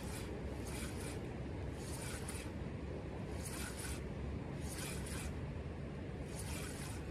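Spinning reel being cranked in short spurts, a brief burst of reel winding about every second, over a steady low rush of creek water.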